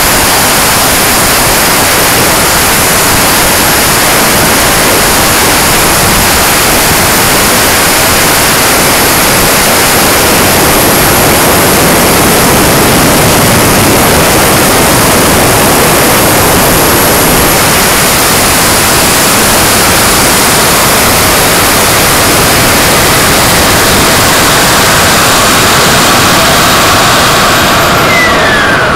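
Turbine-powered RC jet heard from its own onboard camera in flight: a loud, steady rush of airflow and turbine noise with a thin high whine. Near the end the whine falls sharply in pitch.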